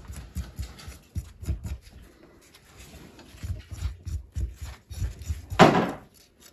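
A knife scraping the spines off a cactus: a run of short, irregular scraping strokes, with one louder, longer scrape about five and a half seconds in.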